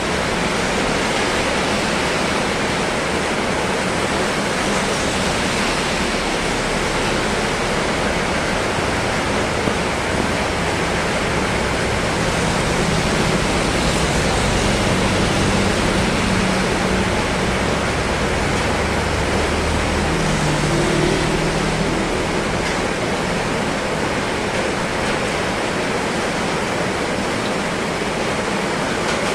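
Heavy rain pouring down in a steady, continuous hiss. A motorcycle engine passes through about halfway, with a further low engine hum a few seconds later.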